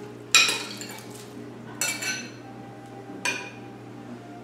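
Metal spoon clinking against a small ceramic bowl three times, each with a short ring, as raisins are scraped out of it.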